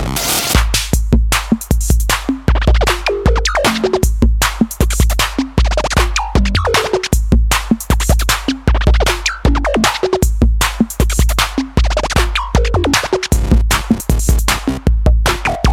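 Electronic hip-hop music with a heavy drum-machine beat and record scratching.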